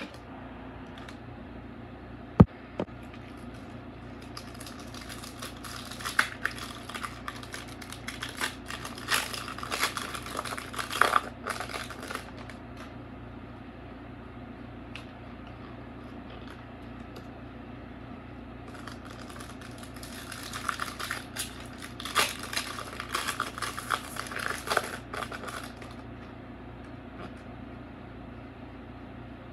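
Pokémon trading cards and a foil booster-pack wrapper being handled: rustling and card flicks as the cards are sorted through by hand, in two stretches of several seconds each. A single sharp tap comes about two seconds in.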